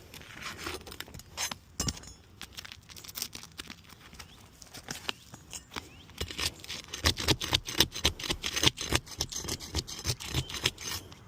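Prying and scraping at brittle asphalt roof shingles: irregular scrapes and sharp clicks, sparse at first and much busier about halfway through. The shingles are tearing and crumbling instead of coming out.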